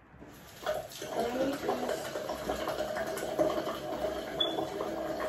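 Running water, starting about a second in and continuing steadily.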